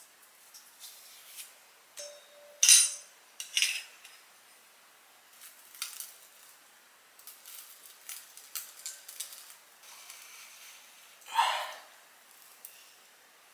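Kitchen utensils and dishes clinking and knocking in scattered short strokes as food is prepared, with two sharper knocks about three seconds in and a brief louder swish late on.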